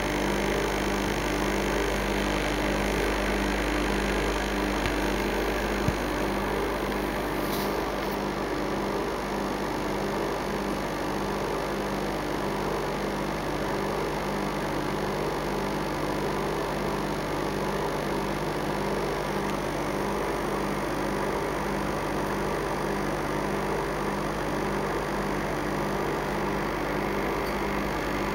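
Steady electrical hum with a faint regular pulsing and a background hiss, and a small click about six seconds in.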